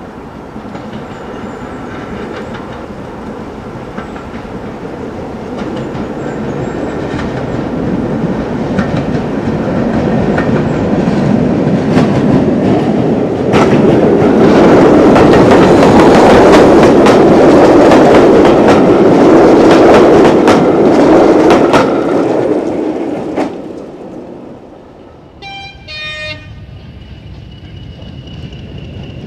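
Steam locomotive running tender-first, approaching and passing close beneath: its exhaust beats, rumble and clatter build steadily to a loud peak as it goes under, then cut off. A couple of seconds later comes a short, shrill toot from a train whistle.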